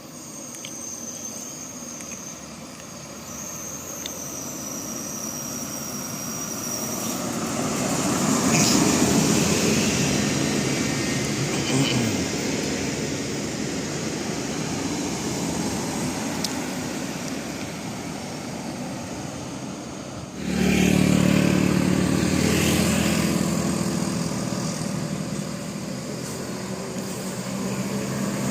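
Road traffic: vehicle engine and road noise that swells as a vehicle passes and then eases off. About twenty seconds in, a louder, deeper engine drone sets in abruptly.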